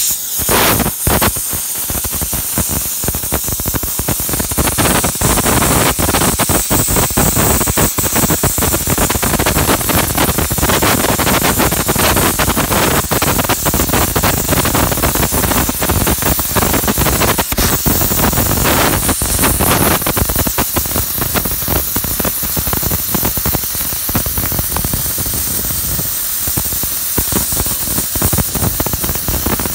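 Oxy-fuel cutting torch hissing steadily as its oxygen jet cuts through steel, with continuous crackling from the molten metal and spraying sparks.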